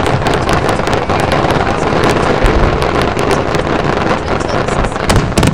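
Fireworks barrage: many rapid reports and crackles overlapping into a continuous loud rumble, with wind buffeting the microphone.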